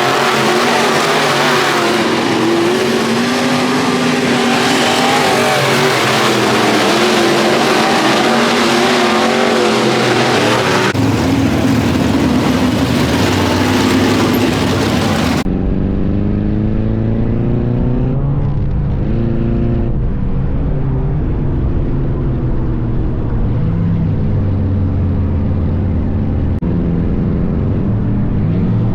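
Race car engine running hard on a dirt track, its pitch rising and falling as it revs up and lifts off. About 15 seconds in, the sound changes abruptly to a duller, bassier recording of an engine still revving and easing.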